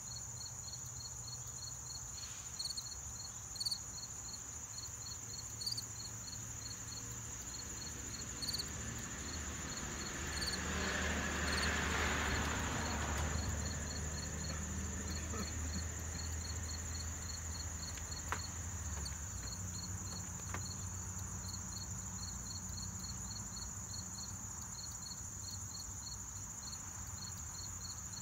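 Insects chirping outdoors: short high chirps repeat evenly, about four a second, over a constant high insect drone. About ten seconds in, a rushing noise with a low hum swells and fades over a few seconds, and a few faint taps come and go.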